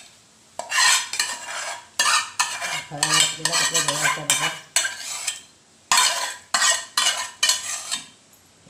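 Steel spoon scraping and clinking against the inside of a stainless steel bowl while scooping thick set curd out of it, in several bursts of strokes with short pauses between them.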